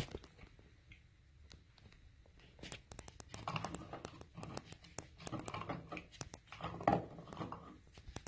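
Gloved hands handling electrical wires, wire nuts and a plastic housing at a wall switch box: a quick run of small clicks and rustles starting about three seconds in, loudest about seven seconds in.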